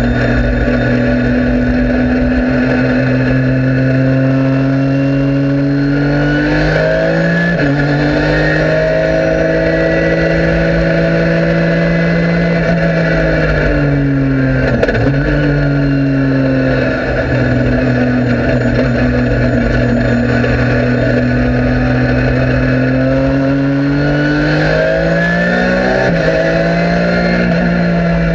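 Porsche 997 GT3 Cup race car's flat-six engine at high revs under hard acceleration, heard from inside the cockpit. It pulls up through the revs with an upshift about 7 s in and another near the end, and backs off briefly around the middle.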